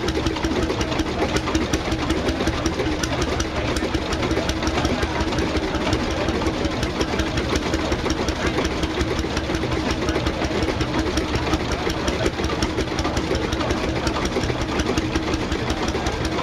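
Small vintage Brons stationary engine running steadily at idle, an even, rapid knocking beat with a steady hum that holds unchanged.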